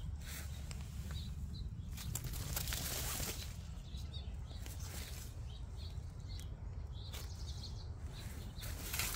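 Leaves of garden plants rustling and crackling in short irregular strokes, over a steady low rumble on the microphone. Faint high bird chirps come through now and then.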